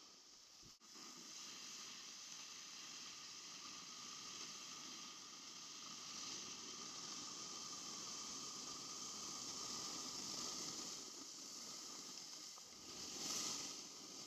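Steady hiss of snowboards sliding over packed snow, swelling louder for about a second near the end as the riders turn. A single sharp click about a second in.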